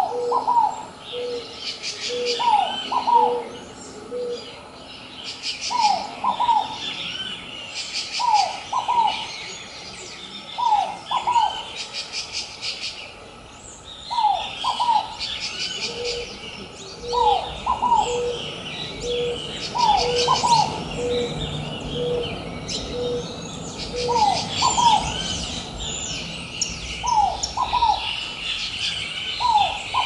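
A ruddy ground dove and a scaled dove calling together. The scaled dove gives a paired rising-and-falling coo every two to three seconds. The ruddy ground dove gives a run of short, low coos at about one and a half a second, once at the start and again in the middle. Small birds chirp higher up in the background.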